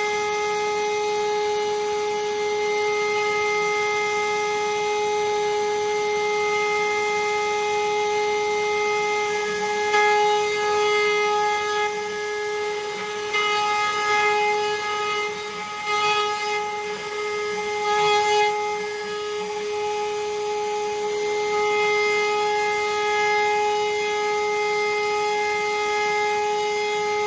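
Genmitsu 3030 ProVerMax CNC router's spindle whining at a steady pitch while its end mill cuts aluminium. The cutting turns rougher and more uneven for several seconds around the middle.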